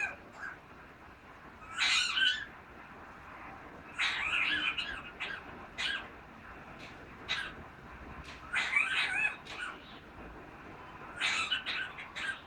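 Parrot making coughing sounds: about six short, rasping bursts, some with a quick rise and fall in pitch, a second or two apart.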